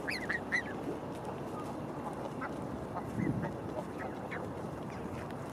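Greylag geese with goslings giving short calls close by: a quick run of calls in the first half-second, then scattered fainter ones.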